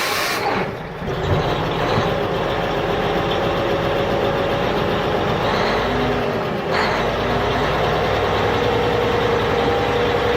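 A small motor running steadily with a low rumble and a steady whine, with a brief sharp change about two-thirds of the way through.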